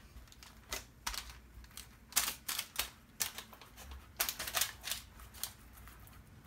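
A hand rubbing olive oil onto stuffed eggplant slices on a parchment-lined tray: irregular light crackles and taps, in clusters about two seconds in and again about four seconds in.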